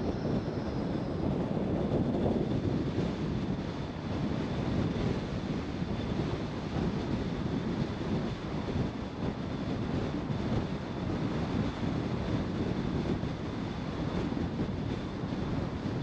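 Steady road and wind noise from a car driving, with a faint high steady whine throughout.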